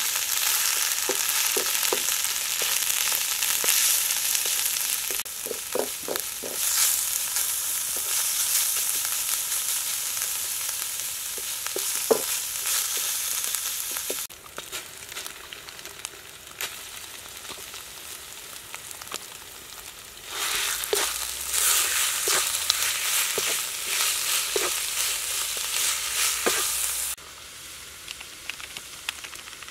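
Yellow spice paste sizzling as it fries in a steel wok, stirred and scraped now and then with a wooden spatula. The sizzle drops off suddenly about halfway through, comes back loud for several seconds, then drops again near the end.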